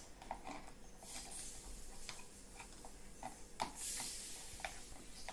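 A white plastic slotted spoon clicking and scraping in a yellow plastic toy pan as cut potato pieces are stirred. It makes soft, irregular taps, with a brief scrape a little before four seconds in.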